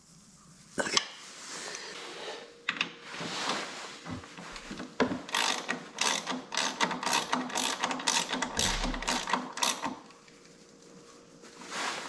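Socket ratchet wrench clicking in quick runs as it is swung back and forth on a bolt, from about five seconds in until near the end. Before it come lighter scattered tool clicks and handling noises.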